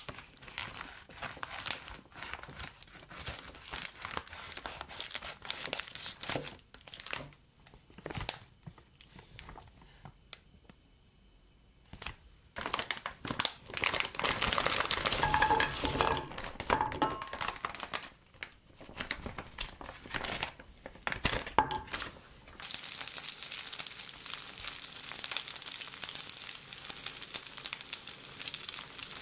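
A plastic bag of dumplings crinkling and rustling as it is handled and opened. About halfway through, the dumplings tumble out of the bag into an oiled nonstick frying pan with a louder run of clattering and rustling. Over the last six seconds or so, a steady sizzle as they start frying in the oil.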